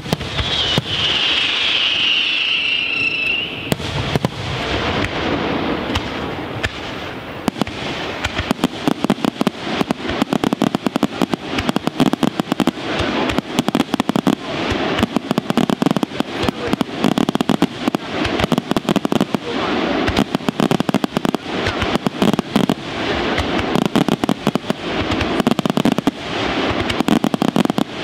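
Aerial firework shells bursting again and again. The bangs come faster from about four seconds in and build into a near-continuous rapid barrage. A wavering whistle sounds over the first few seconds.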